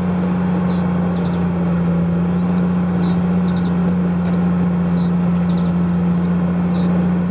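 Large Komatsu crawler bulldozer's diesel engine running steadily under load as it pushes dirt, a loud even drone with a low hum. Small birds chirp repeatedly over it.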